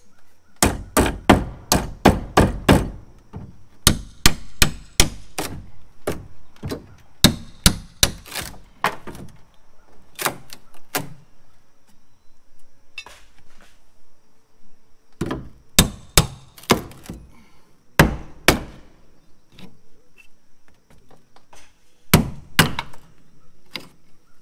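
Hammer blows on wood in quick runs of several strikes, about four a second, with short pauses between runs: boards and trim being knocked loose while a roof cupola is stripped.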